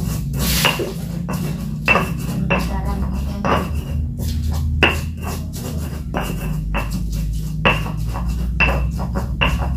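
Pestle knocking and grinding in a mortar as chillies and turmeric are ground into a paste: about a dozen sharp knocks, roughly one a second, each with a brief ring.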